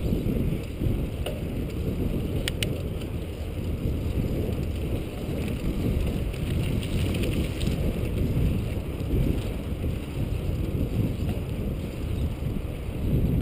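Wind buffeting the microphone while riding a bicycle: a steady, low, gusty rumble, with two sharp clicks about two and a half seconds in.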